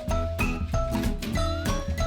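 Background music with a steady beat, bass notes and a bell-like melody.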